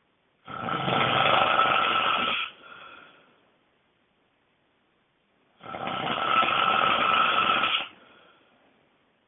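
A person snoring extremely loudly: two long snores about five seconds apart, each trailing off into a fainter breath that fades out.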